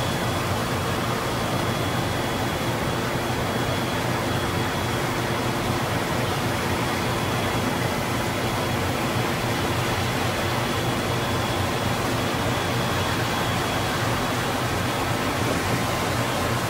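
Steady noise heard on board a moving boat: the engine's even hum under rushing water and wind.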